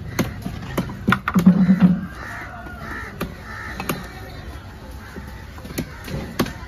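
Large curved knife chopping through fish flesh onto a wooden block: sharp chops at an irregular pace. Harsh cawing calls sound in the background.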